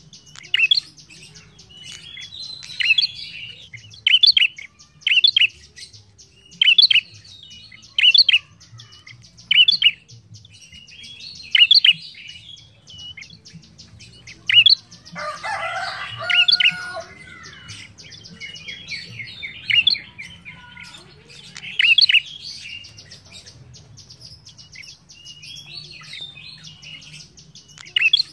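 Prenjak, a small rufous-headed songbird, calling in a cage: loud, sharp call notes about every one to two seconds over a fast, continuous ticking trill, with a harsher chattering burst about halfway through.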